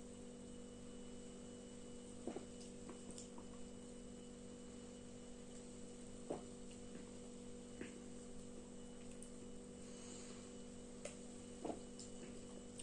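Steady electrical mains hum, with four soft gulps spread through it as a man swallows soda from a plastic bottle.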